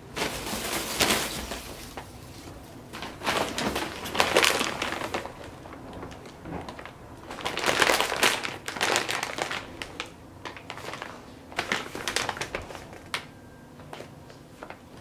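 Honeycomb kraft packing paper and plastic snack bags crinkling as items are lifted out of a cardboard box, in several bursts of a second or two with quieter gaps between.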